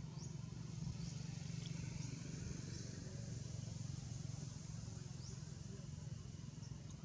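Faint outdoor ambience: a steady low hum underneath, with a short high chirp rising in pitch that repeats roughly once a second.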